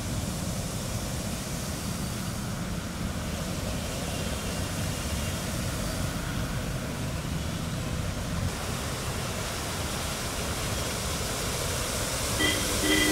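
Steady wash of traffic noise and water on a flooded road as vehicles drive through standing water. Near the end a car pushes through the floodwater, throwing spray, and the sound swells, with a brief tone over it.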